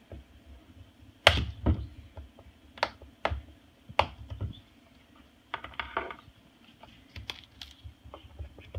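Moluccan cockatoo's beak biting and tapping at the hard, dry rind of a whole squash: a dozen or so sharp, irregular clicks, the loudest about a second in, as it tries to get into the gourd.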